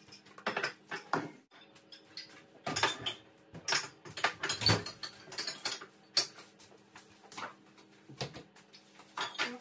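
Ceramic mugs and dishes clinking and knocking as they are handled and set onto a kitchen cupboard shelf, a dozen or so separate clinks over a faint steady hum.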